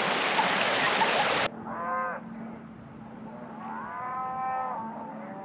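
River Lathkill rushing over stones, cutting off suddenly about a second and a half in. Then cattle mooing twice: a short moo, and about two seconds later a longer one, over a faint steady low hum.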